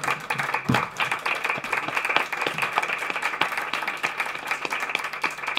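Applause from a small audience: many hands clapping at once in a steady patter.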